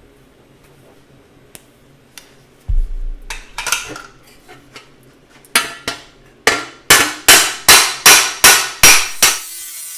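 Hammer beating out fresh welds on thin 18-gauge sheet steel to keep it from warping: about eight sharp, ringing metal strikes, roughly two a second, after a few lighter clanks. A steady hiss starts near the end.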